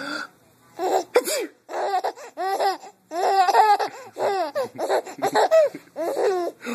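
Baby laughing in a run of high-pitched belly-laugh bursts, about two a second, with short breaths between. The baby is laughing in response to sneezes.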